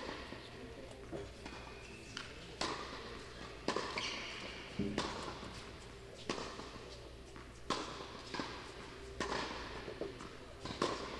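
Tennis ball being struck back and forth in a rally, a sharp pop of ball on racket strings about every second and a half, with a few softer bounces between.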